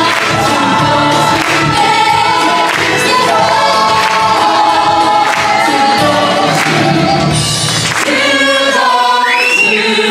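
Stage musical's cast singing together with the live band in the theatre, over a steady beat. About eight seconds in, the bass drops out.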